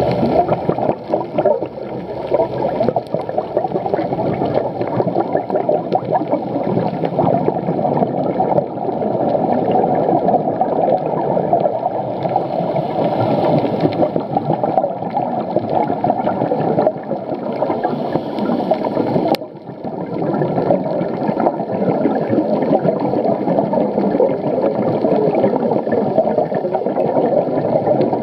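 Underwater sound picked up by a camera in a dive housing: a steady, muffled rushing and gurgling of water. There is a brief click and dip about two-thirds of the way through.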